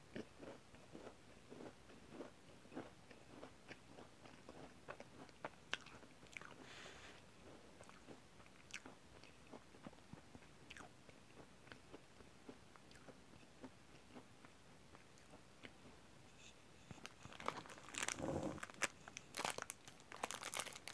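Soft chewing and biting: small crunches and mouth clicks. From about three-quarters of the way in, louder crinkling of a plastic bag around a brownie.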